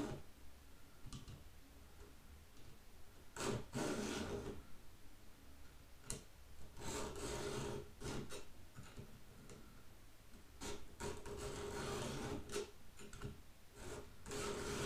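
Codirom 2-in-1 chainsaw sharpener's round and flat files rasping across the cutters of a dull Oregon saw chain, a handful of separate strokes about a second long with pauses between.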